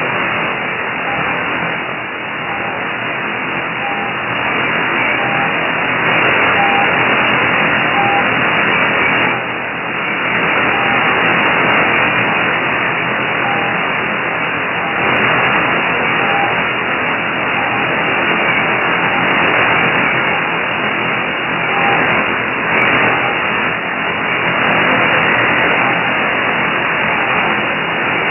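Shortwave static hiss from an Airspy HF+ Discovery receiver tuned to 6230 kHz upper sideband. Through the hiss a faint, short single-pitch beep repeats every second or two: the mysterious 'pip' CW signal on 6231 kHz, thought to come from Europe or Russia, received weakly.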